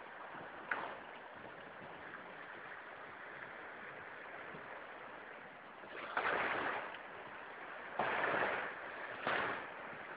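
Steady rushing of water and wind aboard a sailing yacht under spinnaker, with louder swooshes about six, eight and nine seconds in.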